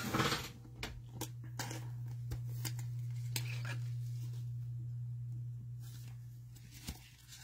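Trading cards being handled and sorted by hand: scattered light clicks and brief rustles as cards are flipped and slid against each other, over a steady low hum.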